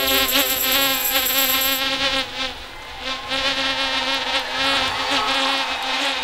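A steady buzzing tone, like an insect's buzz, with a fixed low pitch and wavering upper overtones. It dips in level a little over two seconds in, then carries on.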